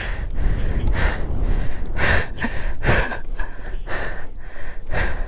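Repeated heavy, gasping breaths, several strokes a second or so apart, over strong wind buffeting the microphone, just after the motorcycle has fallen over on rocky ground.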